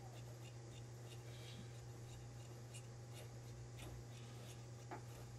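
Large tailor's shears cutting through suit cloth and lining on a cutting table: faint, scratchy, crisp snips over a steady low hum, with a light knock about five seconds in.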